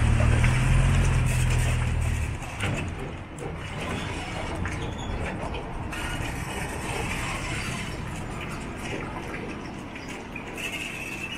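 Riding a resort shuttle road train: a low engine drone for the first two seconds or so, then a steady rushing rumble with small rattles as the train rolls along.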